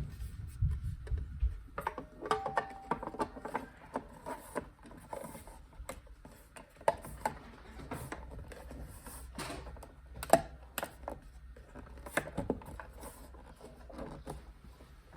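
Handling noise: irregular clicks, taps and knocks of small parts and tools being moved about by hand.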